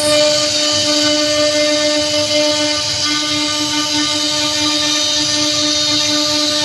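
CNC router spindle running with a steady whine as its bit carves a relief pattern into a teak wood door panel, with a hiss of cutting under it.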